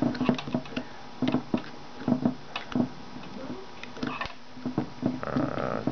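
A run of irregular sharp clicks and light knocks: wire leads and clips being handled and fitted to a small sealed lead-acid battery's terminals.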